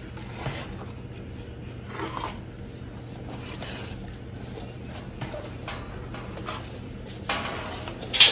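Soft intermittent scraping and squishing as milk-softened puppy mush is stirred and spread in a metal sheet tray by spoon and fingers, over a low steady hum. The rustling grows stronger about seven seconds in, and there is a sharp click just before the end.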